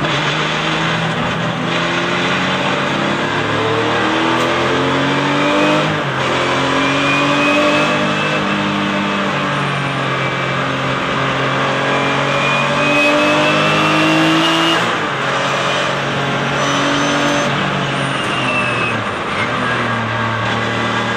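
Porsche 996 Cup race car's flat-six engine under hard acceleration, heard from inside the cockpit. Its pitch climbs through each gear and drops back at each upshift, several times over, with one long pull in the middle.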